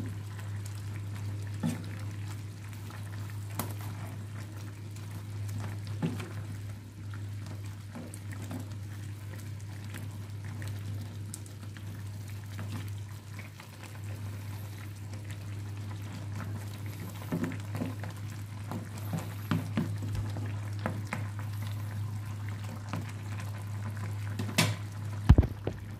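Crab and shrimp stew in coconut milk simmering in a frying pan, with a wooden spoon stirring it and now and then knocking on the pan, a few sharper knocks near the end. A steady low hum runs underneath.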